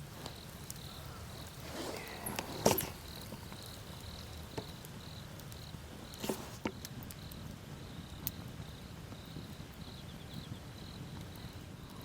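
An insect chirping steadily, about two or three short high chirps a second, with a few sharp knocks; the loudest knock comes about two and a half seconds in.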